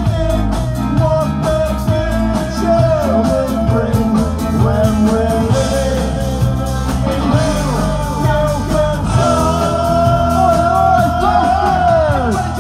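Live ska band playing loudly, with singing and trumpet over bass and drums.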